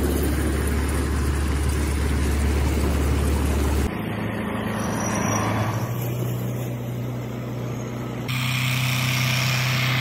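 Belarus tractor's diesel engine running steadily with a low, even drone. The drone changes abruptly in pitch and level about four and eight seconds in, as separate takes are joined.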